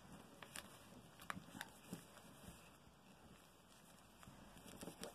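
Near silence with a few faint, short taps and rustles of hands handling satin fabric and a paper pattern on a table.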